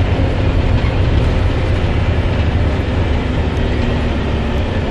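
Steady low rumble of a bus's engine and road noise, heard from inside the moving bus, with a faint steady engine hum.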